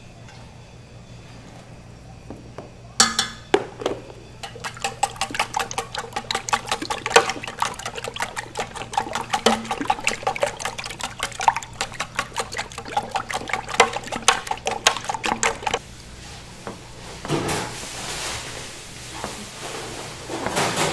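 About fifty raw eggs being beaten by hand in a stainless steel hotel pan: quick, even strokes of a metal utensil clink and ring against the pan, with liquid egg sloshing. The beating starts with a sharp knock a few seconds in and stops about three-quarters of the way through, leaving a few softer sounds.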